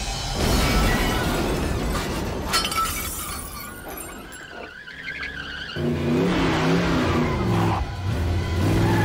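Film sound effects of a violent struggle: noisy crashing with sharp strikes and shattering glass over the first few seconds, fading near the middle. A dramatic music score comes in at about six seconds.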